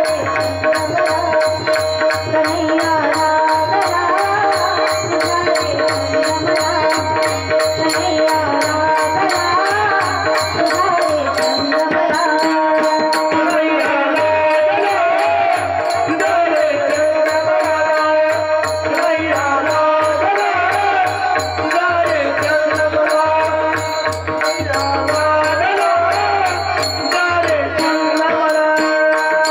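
Varkari kirtan devotional music: a woman singing a melody over steady held harmonium tones, with a mridang drum beating and small hand cymbals striking a steady rhythm.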